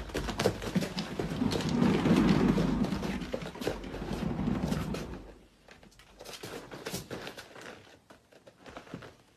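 A cat's paws pattering and thumping as it runs and scrambles about on a hard surface. The thumping is dense for about five seconds, then only scattered taps.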